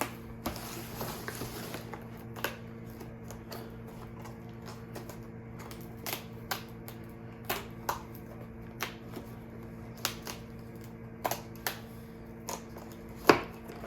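Scattered clicks, taps and rustling of cardboard packaging and a small bottle being handled as an advent calendar door is opened, with a hiss of rustling in the first two seconds. A steady low hum runs underneath.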